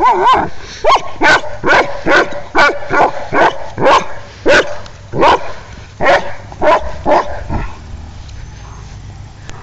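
Dog barking in a quick run of about two barks a second, the barks spacing out and stopping about seven seconds in. It is barking in frustration at a bowling ball it cannot pick up. A low rumble follows the barking.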